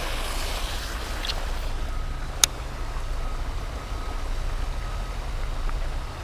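Wind buffeting the microphone: a steady low rumble with hiss, broken by one sharp click about two and a half seconds in.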